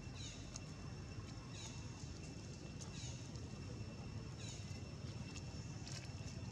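Short, high, falling animal calls repeating about every one and a half seconds, over a steady low rumble and a constant faint high whine.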